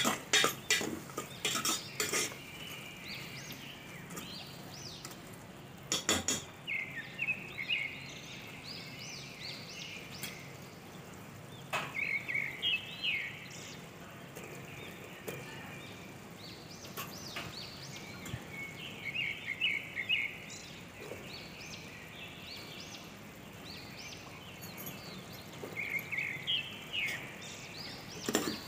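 A metal spoon stirring onion-tomato masala in a steel pot, scraping and clinking against the pot now and then, with a louder knock about six seconds in.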